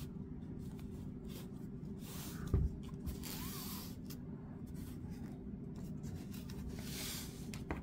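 Stacks of trading cards being slid, squared and set down on a cloth-covered tabletop: soft rubbing and scuffing with light clicks, and one dull thump about two and a half seconds in.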